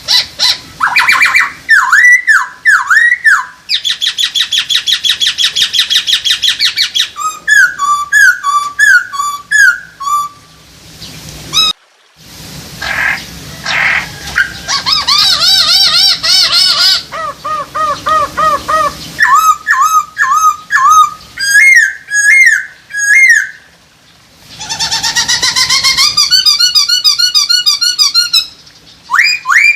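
Black-throated laughingthrush (poksay hongkong) singing a loud, varied whistled song. Phrases of quickly repeated notes and looping glides follow one another, with a brief pause about twelve seconds in.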